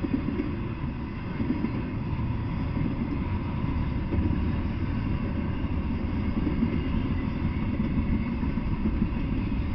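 Double-stack intermodal freight train rolling past: a steady low rumble of steel wheels on the rails.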